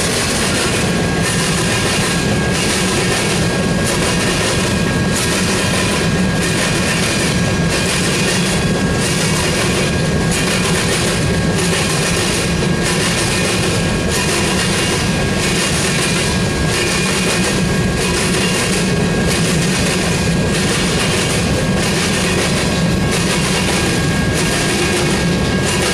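Covered hopper cars of a long freight train rolling past at close range: a steady rumble of steel wheels on rail with a clatter that pulses about once a second, and a thin steady ringing tone above it.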